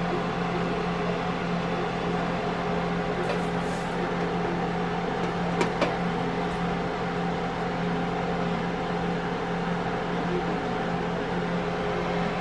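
Chicken drumsticks frying in an electric deep fryer, the oil sizzling and bubbling steadily over a steady hum. Two light clicks about six seconds in.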